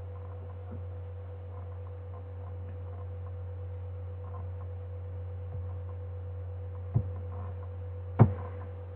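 Steady electrical hum with a faint higher steady tone above it. Two short mouse clicks near the end, the second louder.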